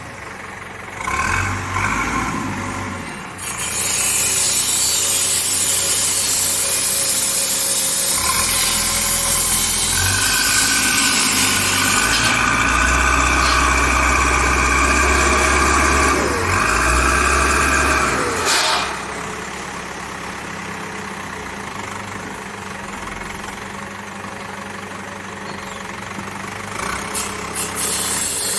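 Cat 424B backhoe loader's diesel engine running. It gets louder a few seconds in, stays up until about two-thirds through, then drops back to a quieter steady idle.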